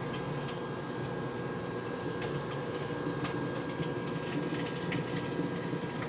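Microwave oven running: a steady hum, with a few sharp clicks scattered through it.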